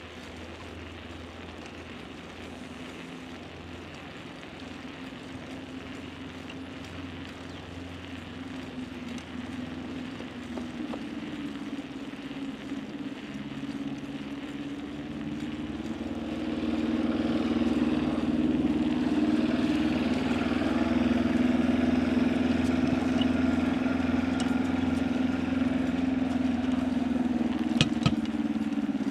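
A motor's steady, pitched hum that grows louder over the first seventeen seconds or so and then holds, with a sharp click near the end.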